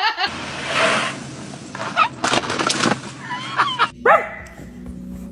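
A dog's short yips and whines over a noisy background, with a few quick knocks partway through.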